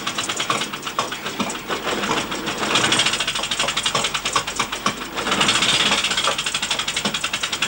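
Small motorcycle with a sidecar moving at walking pace, its engine running with a fast, even putter.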